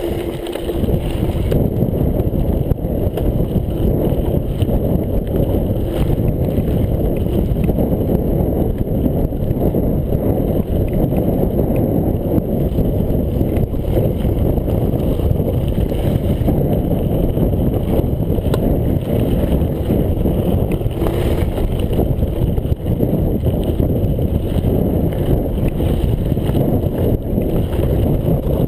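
Steady rumble of a mountain bike riding fast down a loose gravel track, tyres on stones and wind buffeting the chest-mounted action camera, with light clicks and rattles from the bike.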